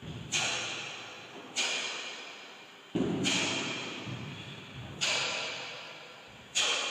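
Five sharp snaps from a taekwondo practitioner's strikes and stances, roughly one every second and a half, each ringing out in the echo of a large gym hall.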